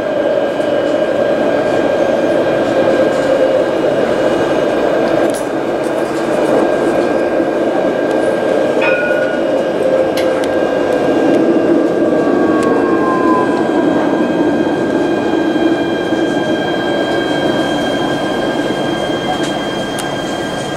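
Alstom Citadis tram running on street track, heard from inside near the front: a steady rumble of wheels on rail under the whine of the electric traction motors. The motor tone slides down in pitch about halfway through.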